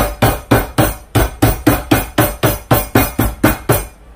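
A steady run of sharp, even knocks, about four a second, stopping shortly before the end.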